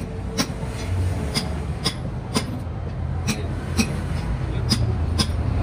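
Sharp taps or clicks about twice a second, evenly spaced, over a steady low rumble.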